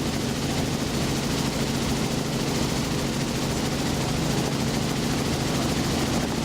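Robinson R44 helicopter in flight, heard from inside the open cabin: rotor and piston engine running steadily with a fast low rotor beat. Wind rushes across the microphone because the doors are off.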